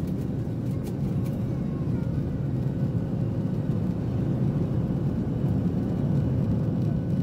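Cabin noise of a Boeing 737-800 at takeoff thrust: a steady deep rumble from its CFM56-7 engines and the airflow, with a steady hum over it, as the jet rolls down the runway and lifts off. A few faint clicks come in the first second or so.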